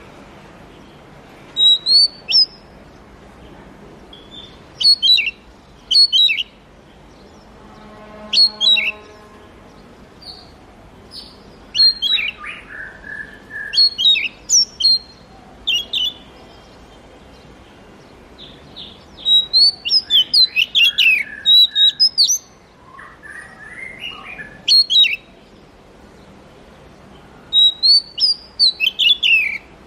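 Oriental magpie-robin singing: short bursts of rapid, sweeping whistled notes separated by pauses of a second or two, with some lower, fuller notes mixed in.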